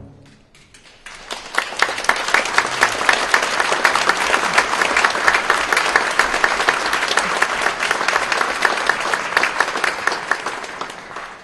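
Audience applauding. The clapping breaks out about a second in, swells quickly, holds steady and then fades out near the end.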